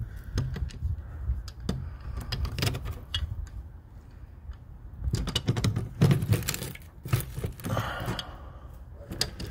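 Scattered metal clicks, clinks and knocks from tongue-and-groove pliers being handled and clamped onto an old hose bib, busiest in a cluster about five to six seconds in.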